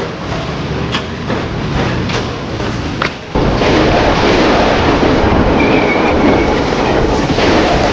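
Strong wind gusting and buffeting the microphone as a loud rushing noise. It drops out briefly a little over three seconds in, then comes back louder.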